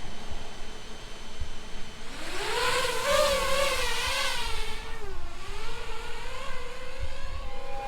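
Quadcopter drone's motors and propellers whining. The pitch climbs about two seconds in, then wavers up and down and dips once before fading out near the end.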